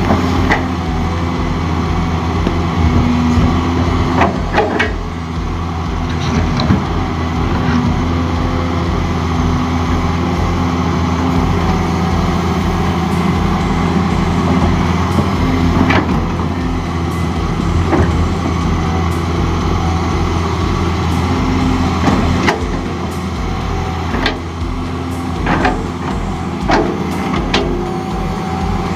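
Hydraulic excavator's diesel engine running steadily under working load while it digs into a hillside, with sharp knocks scattered throughout as the bucket and boom work against earth and rock.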